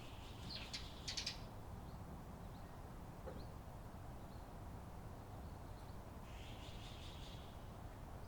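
Eurasian tree sparrow chirping: a quick cluster of sharp chirps about a second in, then a fainter run of chirps near the end, over a steady low background rumble.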